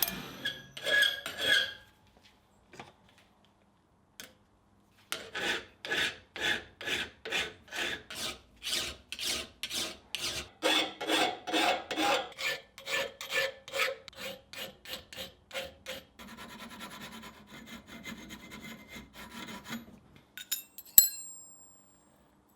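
Hand file worked back and forth over a steel stitching-iron blank, in even strokes about two a second. Near the end it changes to lighter continuous rubbing, followed by a couple of sharp metallic clicks.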